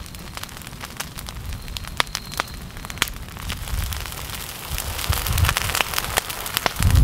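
Ferns and brush burning where lava is setting them alight: many sharp crackles and pops over a low rushing of flame, which swells about five seconds in.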